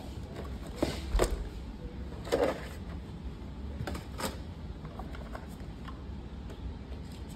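Cardboard packaging and paper inserts being handled, with a few short knocks and scuffs, the loudest about a second in and around two and a half seconds in, over a low steady hum.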